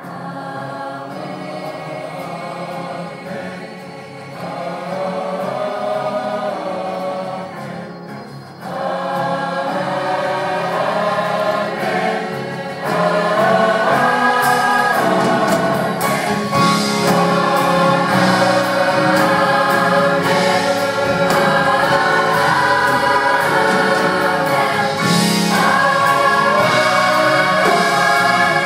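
Large mixed gospel choir singing in full harmony, swelling louder about nine seconds in and again about thirteen seconds in.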